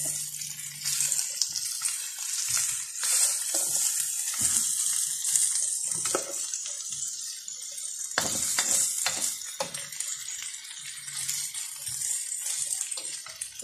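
Chicken wings, carrots and onions sizzling in a hot wok as they are stir-fried, with irregular scrapes and knocks of the spatula against the pan.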